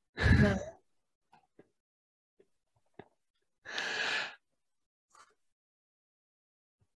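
A brief voiced sound at the very start, then a person's breathy exhale, a sigh, about four seconds in. A few faint clicks are scattered through the otherwise quiet stretch.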